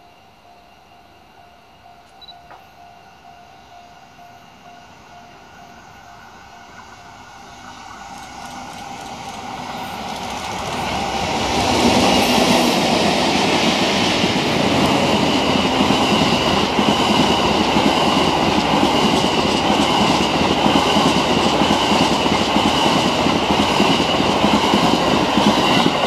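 Locomotive-hauled passenger train (EF64 and EF81 electric locomotives with E26-series Cassiopeia coaches) approaching and passing close by. Its rumble swells over several seconds and turns loud about twelve seconds in, then holds as steady wheel-on-rail noise with rhythmic clacks over the rail joints while the coaches go by.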